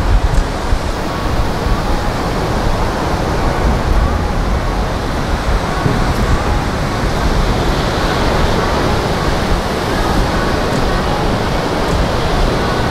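Steady rushing noise of ocean surf, with wind rumbling and gusting on the microphone.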